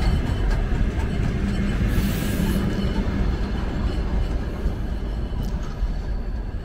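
Passenger train pulling away along the track, its wheels rumbling and clicking over the rails, easing off slightly as it moves off. A brief hiss comes about two seconds in.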